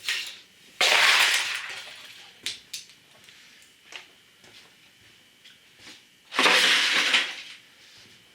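Broken computer debris, plastic and metal fragments, clattering and scraping as it is rummaged through. There are two loud rattling bursts, one about a second in and one after about six seconds, with a few light clicks of small pieces between them.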